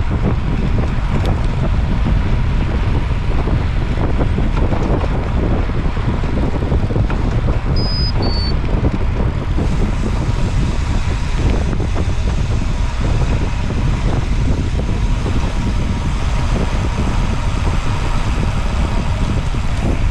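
Steady heavy wind rumble on the microphone while travelling along a road, with two short high beeps about eight seconds in.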